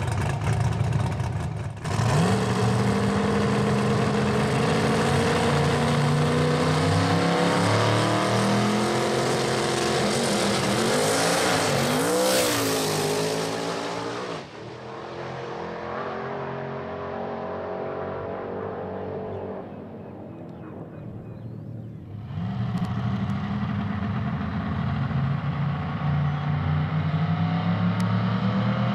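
Twin-turbo V8 of a Mazda RX3 outlaw radial drag car running hard, its pitch climbing steadily for about twelve seconds. It then drops suddenly to a quieter, more distant engine note. About three-quarters of the way in the engine is loud again, revving up.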